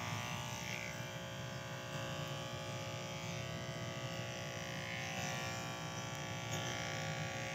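Electric hair clippers running with a steady buzz as they trim hair.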